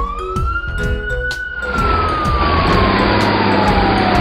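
Fire truck siren wailing: its tone sweeps quickly up at the start, then falls slowly. About two seconds in, a steady engine rumble and hiss join it as the truck drives off.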